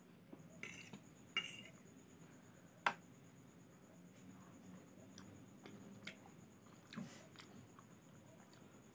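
A metal fork clinking and scraping against a plate as noodles are twirled and picked up, with quiet chewing sounds in between. A sharp clink about three seconds in is the loudest, with a few softer clicks later.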